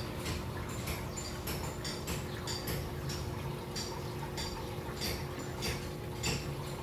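Aquarium water and equipment: a steady low hum under irregular sharp drips and ticks, two or three a second.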